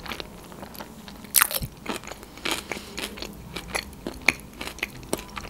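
Close-miked chewing of a sushi roll: irregular soft crunches and mouth clicks, several a second.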